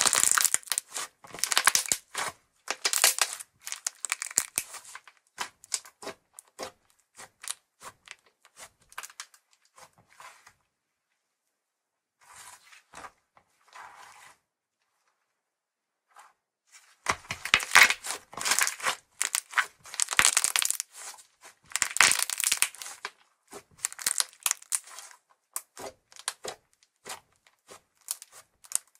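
White slime being squeezed, stretched and pressed by hand, giving dense runs of small crackles and pops. The crackling drops to near quiet about ten seconds in and starts again some seconds later.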